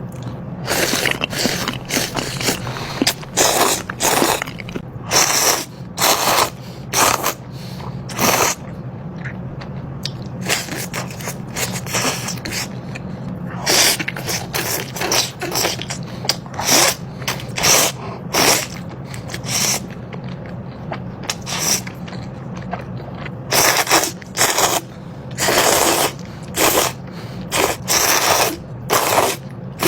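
Close-miked eating of ramen noodles: many short, irregularly spaced bursts of slurping and chewing, over a steady low hum.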